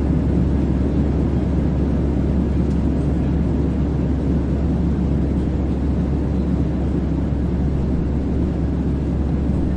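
Airplane noise: a steady, low rumbling drone that holds an even level throughout.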